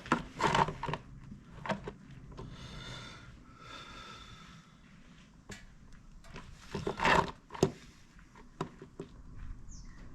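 Scattered knocks and clicks of tools and a drain tray being handled under a motorcycle, a cluster of louder knocks about seven seconds in, while the sump plug is set up to be undone for an oil change.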